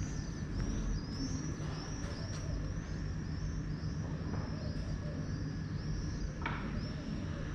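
Small birds chirping over and over, short high calls two or three a second, over a steady low rumble of city traffic.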